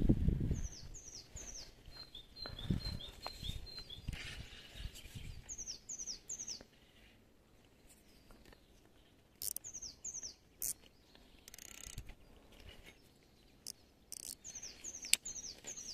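Small songbird singing in short phrases of three quick falling whistles, repeated several times, with a run of rapid high notes about two seconds in. A few soft knocks and sharp clicks in between.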